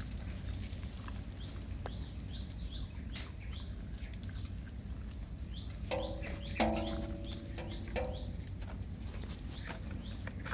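Puppies eating from a plate and shuffling on dry leaves, with scattered light clicks and rustles. A small bird chirps repeatedly in short quick notes, in two runs, and a few brief pitched calls and a sharp click come about six to seven seconds in, over a steady low rumble.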